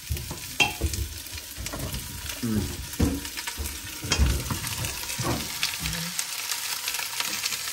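Cubed pumpkin sizzling as it is tipped from a wooden cutting board into a hot steel pot of butter-sautéed onion, garlic and ginger, with irregular knocks of the pieces and the board against the pot.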